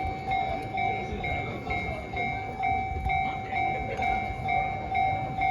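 Japanese railway level-crossing warning bell ringing in a steady repeating pattern of about two strokes a second, over a low background rumble of noise.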